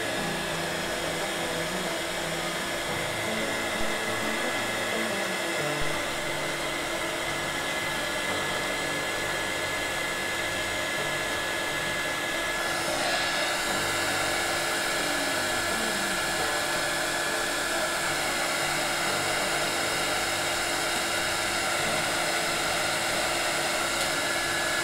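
Small 300-watt heat gun blowing steadily, a rushing air noise with a steady fan whine, while it dries a wet-applied vinyl sticker on an acrylic plate. About halfway through the tone shifts slightly and gets a little louder.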